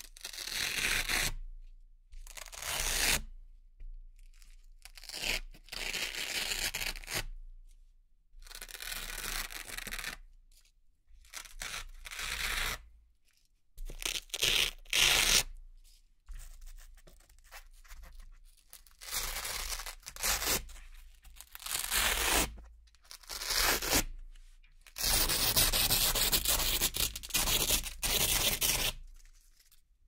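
Velcro (hook-and-loop) strips being peeled off a board one after another: about a dozen rips of a second or two each, with a long steady rip of about four seconds near the end.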